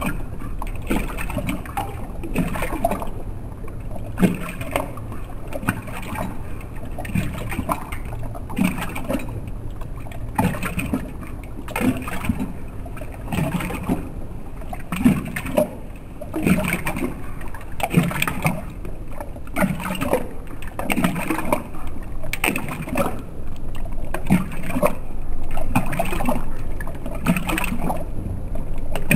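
A German shorthaired pointer lapping water from a stainless steel bowl, the audio slowed down with the slow-motion picture, so each lap comes as a deep, drawn-out slosh and splash, about one a second.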